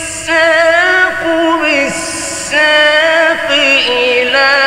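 A man's voice in melodic Quran recitation (tajweed), sung in long held phrases with quick ornamental turns and wavers in pitch. Two short hissing consonants break in, at the start and about two seconds in.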